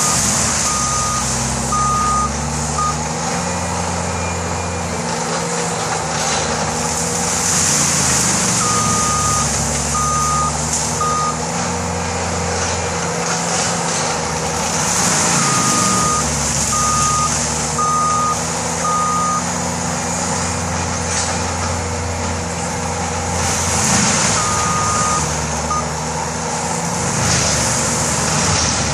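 Tracked skid steer with a forestry mulcher head clearing brush: its diesel engine runs hard with a low pitch that keeps shifting as it works. Its reversing alarm beeps in four short runs of three or four beeps as it backs up, and loud hissing rushes come every several seconds as the mulcher chews into the brush.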